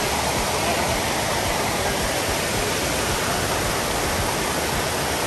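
Amicalola Falls, white water rushing over rock ledges close at hand: a steady, even rushing that does not change.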